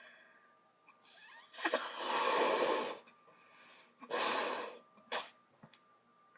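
A person making harsh, unpitched breathy noises with the mouth or nose: a long burst about a second and a half in, a shorter one around four seconds, and a brief sharp one just after five seconds.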